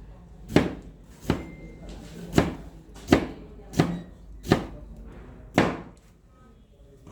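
Kitchen knife chopping vegetables on a cutting board: seven slow, single chops, stopping about six seconds in.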